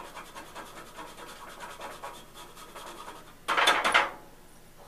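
Fresh jalapeño rubbed across a hand grater: a quick run of rasping scrapes, several a second, then a louder burst of noise lasting about half a second, about three and a half seconds in.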